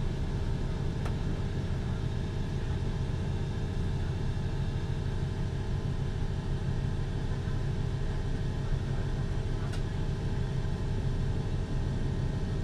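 Douglas DC-3's piston radial engines running steadily at taxi power, heard from inside the cabin beside the engine: a low, even rumble.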